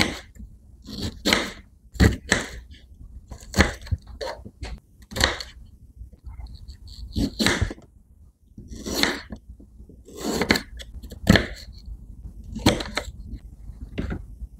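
Kitchen knife slicing through a fresh bamboo shoot into rounds on a wooden chopping board. Each cut is a short, crisp crunch, coming at an uneven pace of about one a second, some in quick pairs.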